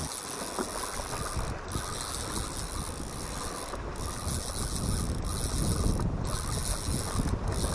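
Spinning fishing reel being cranked, its handle turned to retrieve the line, giving a continuous mechanical gear sound.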